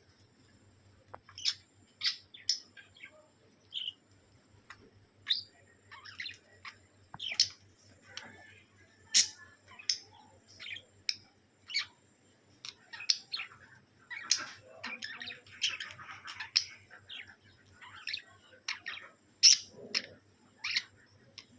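A pet bird chirping and squawking in short, sharp calls at irregular intervals, over a faint steady low hum.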